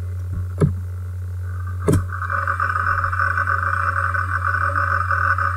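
Unwanted background noise in an unprocessed voice recording: a steady low hum, two clicks, and from about two seconds in a steady hiss. This is the noise that noise reduction is meant to remove.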